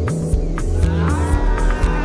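Background music with a steady beat: held bass notes, regular hi-hat-like ticks, and a rising synth line about halfway through.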